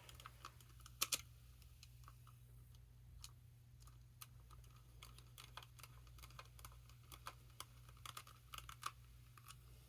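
Near silence with a steady low hum, broken by faint, irregular small clicks and taps, a slightly louder pair about a second in.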